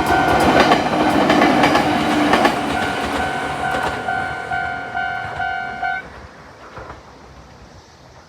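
Japanese railway level-crossing alarm, an older high-pitched electronic warning tone, sounding in even repeated pulses while a Jōmō Electric Railway train rattles past with wheels clicking over the rail joints. The train noise fades out about two and a half seconds in, and the alarm cuts off suddenly about six seconds in, once the train has cleared the crossing.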